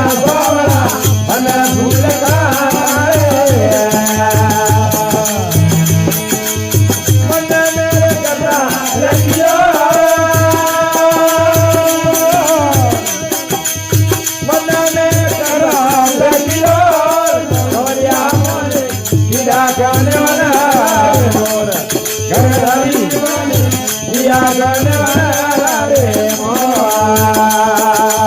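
Marwari folk bhajan music without words: a bending melody line over a steady drum beat of about two strokes a second and a continuous jingling rattle percussion.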